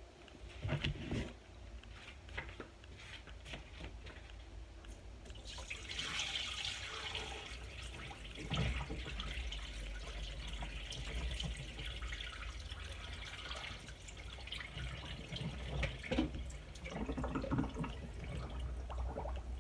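Salt brine draining through a colander of raw chicken wings into a sink, a steady splashing trickle starting about five seconds in, with a few knocks of the bowl.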